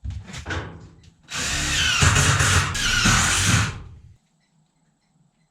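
Power drill driving a drywall screw through sheet tin into a ceiling joist, running for about two and a half seconds. A few short knocks of handling come just before it.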